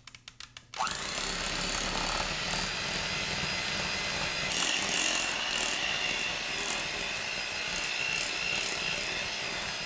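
Electric hand mixer switched on about a second in, then running steadily with a thin high whine as its beaters work a thick cream-cheese and pudding mixture in a glass bowl.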